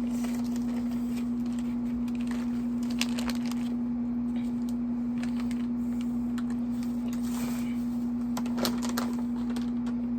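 Steady electric hum from an air conditioner running in the room, with scattered crinkles and clicks of mochi packaging being handled, a cluster about a third of the way in and another near the end.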